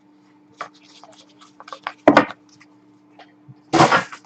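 Hockey cards and their cardboard packaging being handled: scattered light taps and rustles, with two louder rustling bursts, one about two seconds in and a longer one near the end.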